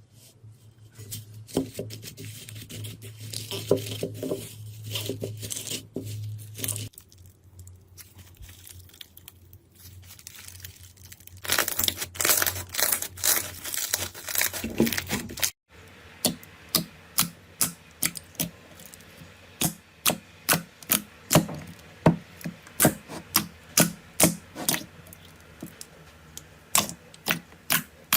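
Slime being handled in a run of short clips: soft sticky squishing over a low hum, then a few seconds of loud, dense crackling, then after a sudden cut a long series of sharp, evenly spaced clicks, about one or two a second.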